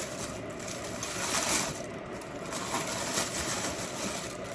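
Wind rushing over the microphone outdoors, a steady noise that swells about a second and a half in and again near three seconds.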